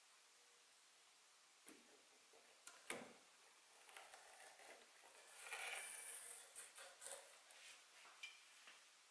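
Faint clicks and scraping of blacksmith tongs handling a steel hammer head inside a small electric tempering kiln. The sharpest click comes about three seconds in.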